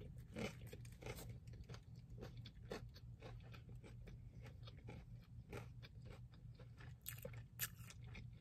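Close-up chewing of a burger: a bite near the start, then soft, irregular wet mouth clicks as it is chewed, over a faint steady low hum.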